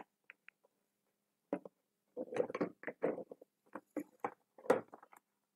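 Faint, irregular short taps and scratches of a pen and paper being handled on a desk. It starts about a second and a half in, after a silent pause.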